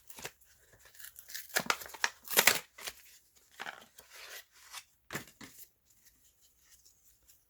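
A Pokémon card pack's wrapper being opened by hand: a few short tearing and crinkling rustles, loudest about two and a half seconds in, dying away near the end.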